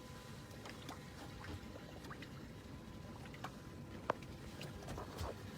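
Faint water lapping against a boat hull, with a few small sharp clicks and one sharper click about four seconds in.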